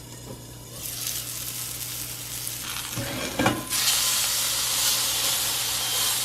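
Venison burger patties frying in a pan. A faint sizzle builds from about a second in, there are a couple of knocks around three seconds in, and then a loud, steady sizzle follows.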